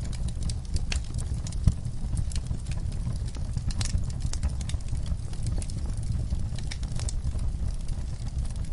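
Wood logs burning in a fireplace, crackling and popping irregularly over a low, steady rumble of flame, with one sharper pop about two seconds in.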